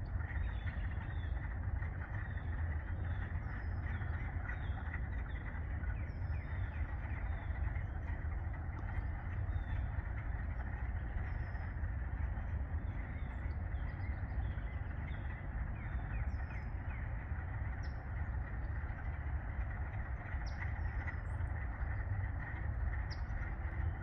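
A spring chorus of many frogs calling together: a dense, continuous trilling with short high calls repeating over it about every half second. A low steady rumble runs underneath.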